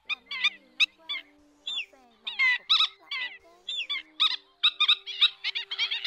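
Black-winged stilts calling: a run of sharp, yelping notes that grows denser and more continuous about three-quarters of the way in.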